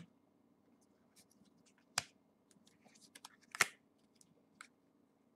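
Trading cards being handled and laid down on a cloth playmat: a few short, sharp card snaps and taps, the loudest about three and a half seconds in, over a faint steady hum.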